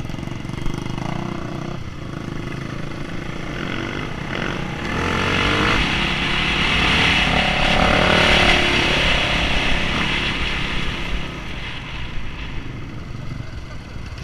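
Enduro motorcycle engines running, heard from the saddle of one bike on a dirt track with other bikes close ahead. The engine revs up and gets louder around the middle, then eases off near the end.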